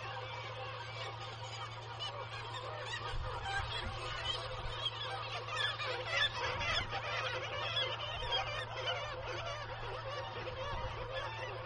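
Nesting colony of black-legged kittiwakes calling, many birds at once in a dense, overlapping chorus of short cries that swells about halfway through. A steady low hum sits beneath.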